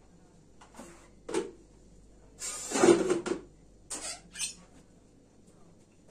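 Kitchenware being handled on a counter and a wall cupboard being opened. There is a knock about a second in, then a louder rattling clatter for about a second, then two short knocks.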